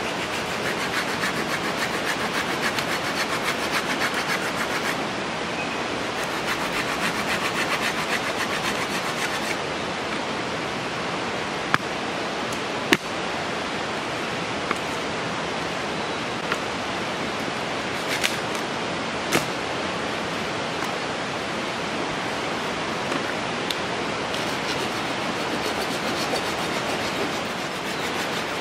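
Fixed-blade knife scraping and shaving a stick of firewood in quick repeated strokes, with a few sharp wooden knocks through the middle, over the steady rush of a river.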